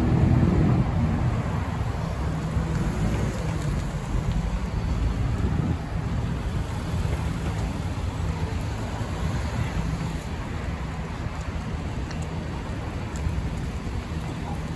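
Road traffic: a slow line of cars and SUVs passing close by, engines running and tyres on the road making a steady low rumble, loudest in about the first second.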